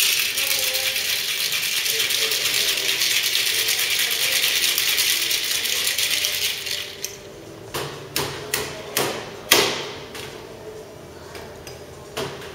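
Ice rattling hard inside a Boston cocktail shaker as it is shaken for about seven seconds, then stops. A series of sharp knocks and clinks follows, the loudest about two seconds after the shaking ends.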